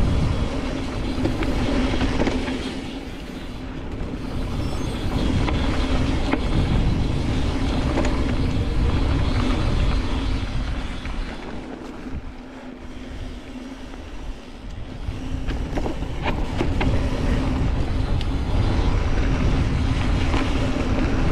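Mountain bike descending a dirt trail at speed: wind rushing over the camera microphone, tyres on dirt, and scattered knocks and clatter from the bike over bumps. It eases and quiets about three seconds in and again for a few seconds past the middle, then picks back up.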